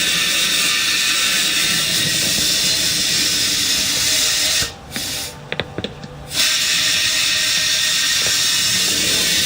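Compressed air hissing loudly into a riding-mower tire, in two long bursts with a pause of about a second and a half between them; each burst stops abruptly.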